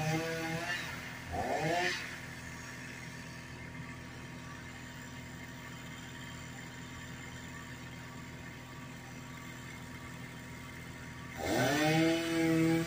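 Two-stroke chainsaw running at high revs with a wavering pitch, then dropping about a second in to a quiet, steady idle. Near the end it revs back up sharply and holds high, under load as it cuts into a tree trunk.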